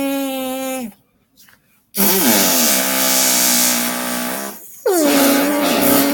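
Imitation fart noises made by a person: three loud buzzy blasts, the first ending about a second in, a long raspy one in the middle, and a third starting near the end.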